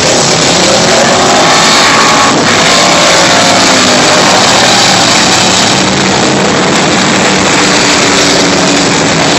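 Engines of several dirt-track stock cars running hard at race speed, loud and continuous, their pitch rising and falling as the cars pass and go round the turns.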